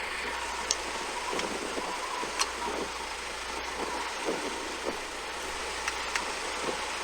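Parked vehicle's engine idling steadily under a hiss of wind, with a few small clicks.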